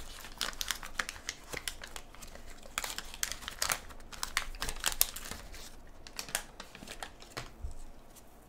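Crinkling of a 1984 Topps wax-paper pack wrapper being peeled open and the cards pulled out by gloved hands: a dense run of sharp crackles, loudest about five seconds in, that thins out near the end.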